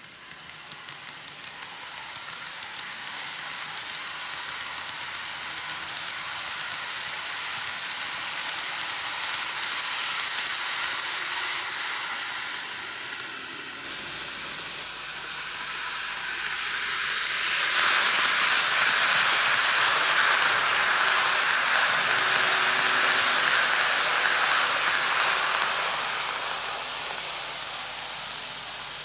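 N gauge model train (GreenMax Keikyu New 1000 series) running on TOMIX track: a steady high hiss of metal wheels rolling on the rails, with fine rapid clicking. It grows louder and fades as the train passes, breaks off suddenly about halfway, then swells again and fades near the end.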